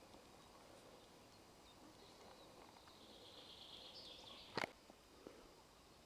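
Near silence: faint outdoor ambience, with a faint high twittering about three seconds in. A single sharp click follows about a second and a half later, with a smaller click soon after.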